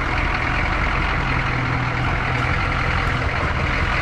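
Chevrolet truck's 6.2-litre V8 diesel engine running steadily.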